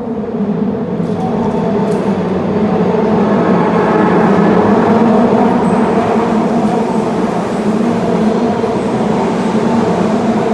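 Osaka Metro Midosuji line subway train running along the platform, a loud, steady rumble with a humming drone that builds over the first few seconds and then holds.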